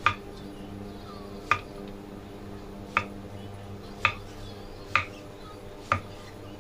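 A cleaver slicing through raw pumpkin and knocking on a thick wooden chopping block: six sharp knocks, about one a second, over a steady low hum.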